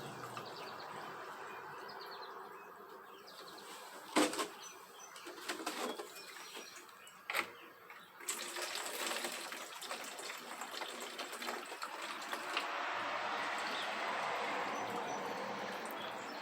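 Water sprayed into the plastic housing of a bicycle chain cleaner to rinse out trapped grime and metal particles, a steady hiss of spray running through the second half. A few sharp plastic knocks come in the first half as the cleaner is handled.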